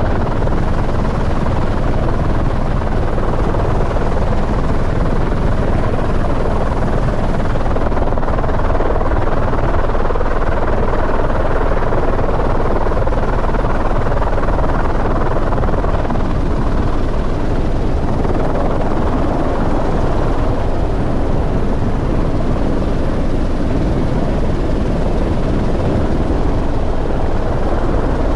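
Helicopter running steadily, a loud continuous rotor and engine noise with no break.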